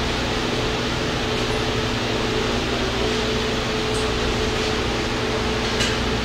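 Large shop fan running: a steady rush of air with a constant low hum underneath.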